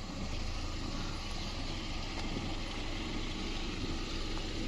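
Vehicle running on the road: a steady drone of engine and road noise.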